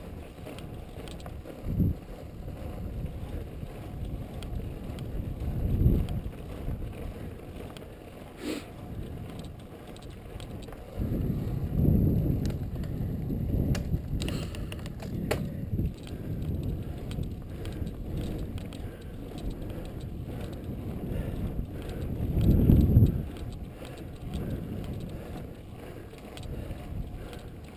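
Road bicycle coasting fast downhill on asphalt: wind rushing over the microphone and a low tyre rumble, swelling in gusts a few times, with a few light clicks.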